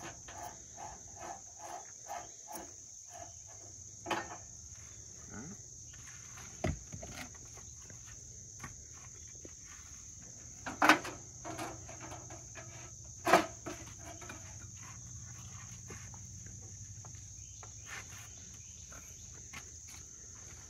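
Coleman propane camp stove being packed away: scattered handling clicks and knocks, then two loud metal clanks about two and a half seconds apart near the middle as the stove's lid is folded shut. A steady high insect chorus runs underneath.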